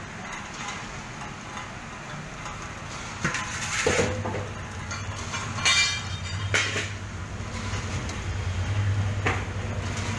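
Paddle mixer for pellet-feed or compost mash running, its electric motor and worm gearbox giving a steady low hum while the paddles turn the mash in the trough. Several clattering knocks sound from about three seconds in.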